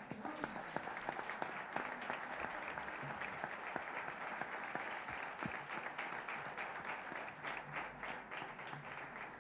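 Audience applauding: many hands clapping in a steady patter that thins out near the end.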